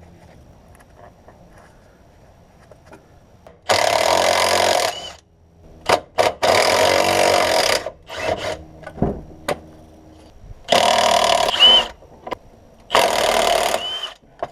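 A handheld power tool, such as a drill or driver, run in four bursts of about a second each, with a brief whine as the motor stops after some of them. A few short knocks fall between the bursts.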